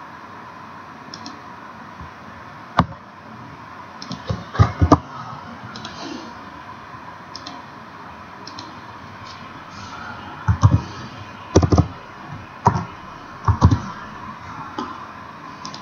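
Computer keyboard keystrokes and mouse clicks, in scattered groups: a single click about three seconds in, a short run around five seconds, and more from about ten to fourteen seconds, as a short label is typed in.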